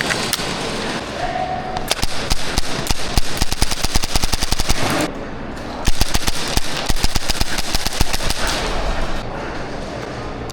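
Airsoft guns firing in rapid strings of sharp clicking shots, with a brief pause about halfway through.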